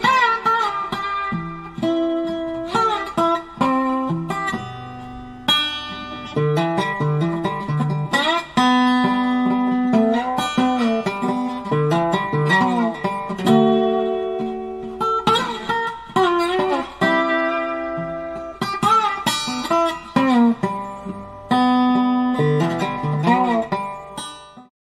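Background music: a guitar piece of plucked notes, some bending in pitch, that cuts off abruptly near the end.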